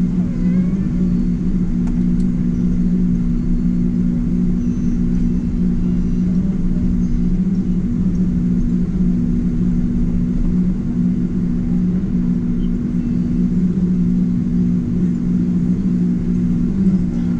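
Steady low drone of a Boeing 777-200ER's GE90 engines and rushing air, heard inside the passenger cabin, with a constant low two-note hum running through it.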